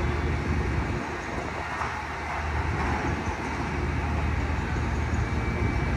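Steady low rumble of city street traffic and machinery, easing slightly for a moment about a second in.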